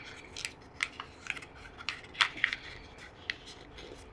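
Sheet of origami paper being folded and pressed open by hand: crisp rustles with a string of short, sharp crackles. The loudest crackles come a little past halfway.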